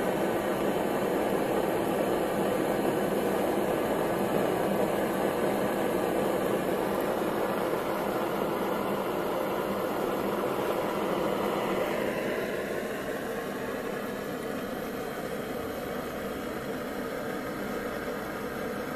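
Propane-fired Stirling engine, with its small water pump and DC generator, running at speed with a steady mechanical whirr. About two-thirds of the way through it gets a little quieter and lower, then holds steady.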